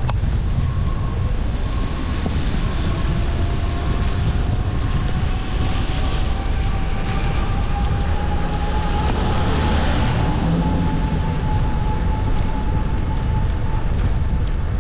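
Steady wind and road noise on the microphone of a bicycle riding through city traffic: a constant low rumble, with a faint whine that slowly rises in pitch.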